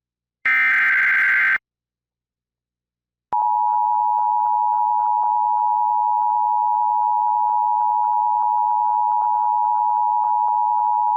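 Emergency Alert System tones. First comes a one-second burst of the digital SAME header's data tones. Then, after a short silence, the steady two-tone attention signal sounds for about eight seconds.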